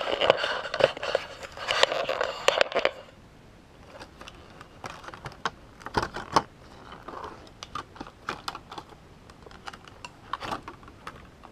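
Plastic packaging on a new planner crinkling as it is handled for about three seconds, then scattered sharp clicks and taps as the planner is moved and handled.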